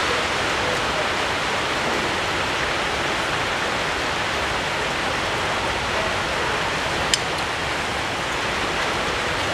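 Steady, even rushing noise with no pitch to it, and a single sharp click about seven seconds in.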